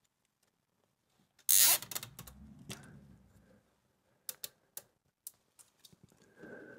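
Hands working a carburetor's throttle linkage to hold it wide open: a sharp clatter about a second and a half in, trailing off into smaller clicks, then scattered light clicks.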